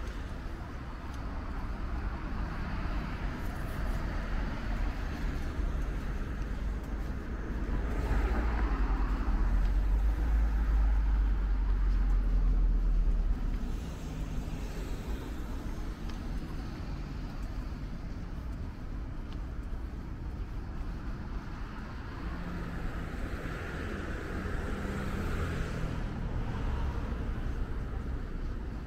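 Street traffic going past: cars passing by, with a deep low rumble that grows louder in the middle and drops off sharply about halfway through.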